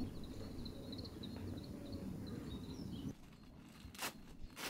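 Small birds chirping in short repeated calls over a low outdoor rumble. About three seconds in, the background drops away and two short sharp clicks follow near the end.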